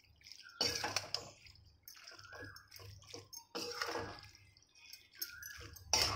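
A spoon stirring and tossing cooked macaroni in a metal pan: a few separate wet, scraping strokes with quieter pauses between them.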